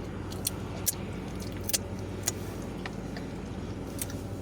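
A steady low mechanical hum with several short, sharp clicks scattered through it.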